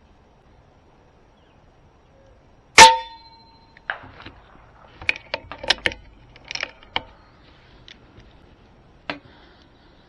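A single shot from a .25 calibre PCP airgun, a Kalibrgun Cricket, about three seconds in: a sharp crack with a brief ringing tone trailing it. A run of smaller sharp clicks follows over the next few seconds, and one more near the end.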